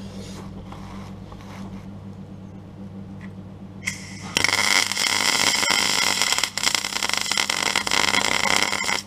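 MIG welder plug-welding a replacement car sill panel. A low steady hum runs until the arc strikes about four and a half seconds in. The arc then crackles loudly and evenly for about four and a half seconds before cutting off.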